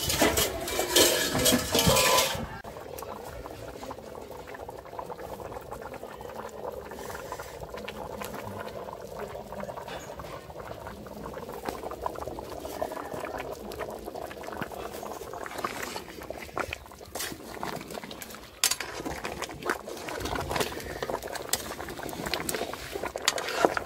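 A large pot of okra and palm-oil sauce boiling hard, bubbling and popping steadily. A louder rush of noise fills the first two seconds, and near the end a metal ladle stirs and knocks in the pot.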